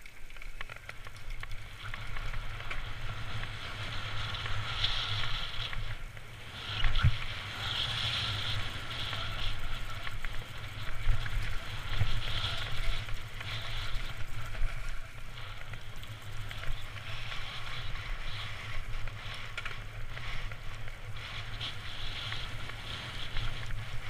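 Trek Fuel EX 8 full-suspension mountain bike running fast down a dirt forest trail: steady tyre and trail noise with knocks and rattles from the bike over bumps, the loudest a hard knock about seven seconds in, and a low rumble of wind on the camera's microphone.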